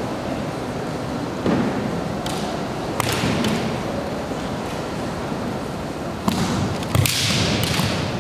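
Kendo bout: bamboo shinai clacking against each other and against armour, with stamping feet on the wooden floor and shouts. There are scattered knocks in the first few seconds, then a quick flurry of strikes and shouts about six to eight seconds in.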